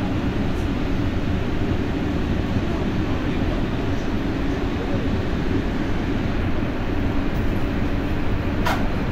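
Interior running noise of a Paris Métro MP14 rubber-tyred train in motion: a steady rumble with a low hum. There is a brief sharp click near the end.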